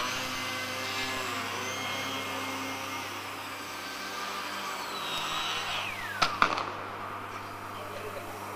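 Small RC model aircraft's motor and propeller whining: the pitch rises as it spools up for takeoff, holds high in flight, then drops away near the end as the throttle is cut. Two sharp knocks follow as the model lands on the concrete floor.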